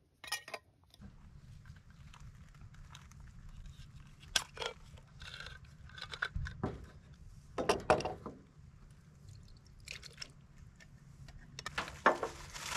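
Canned food being emptied into a metal saucepan and cans handled on a camp stove: scattered scrapes, clinks and knocks, over a steady low rumble that starts about a second in.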